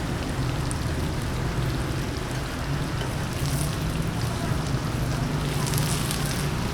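Food sizzling and frying in a hot wok, a steady dense hiss with a low hum underneath and a few crackles near the end.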